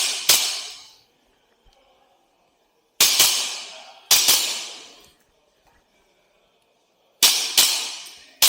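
WE Glock 17 gas blowback airsoft pistol firing: a shot just after the start, then quick pairs of shots about three seconds, four seconds and seven seconds in, with a last shot at the very end. Each sharp crack trails off in an echo.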